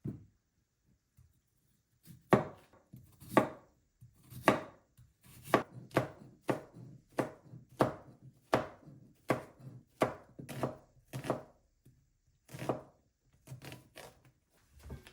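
Knife chopping on a cutting board: a steady run of sharp knocks, about one to two a second, starting about two seconds in.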